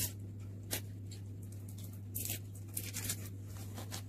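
Small plastic toy-egg capsules and their crinkly plastic wrappers being handled: a few scattered short crinkles and light clicks over a steady low hum.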